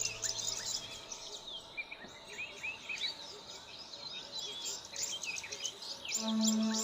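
A dense chorus of birds chirping, many short overlapping calls. A low held musical drone fades out in the first second and another steady pitched tone comes in near the end.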